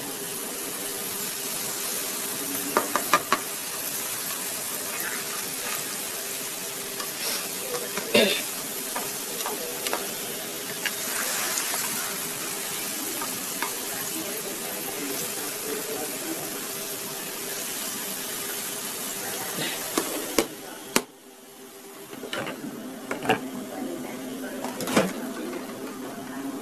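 Butter sizzling in a steel wok as chopped garlic and ginger fry in it, with a few clinks and scrapes of a spatula against the pan. About two-thirds through, the sizzle drops away suddenly, then comes back quieter.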